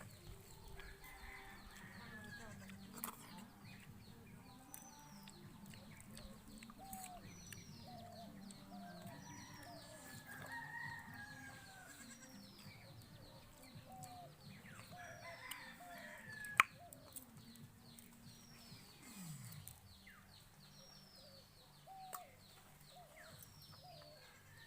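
Chickens clucking and a rooster crowing a few times, with a small bird repeating a short falling chirp about once a second. One sharp click about two-thirds of the way through is the loudest sound.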